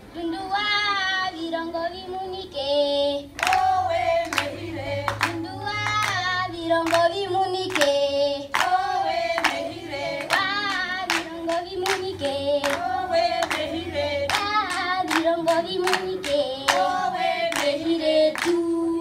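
Children's group singing a Herero traditional song in unison. Rhythmic handclaps join about three and a half seconds in and keep time at roughly two claps a second.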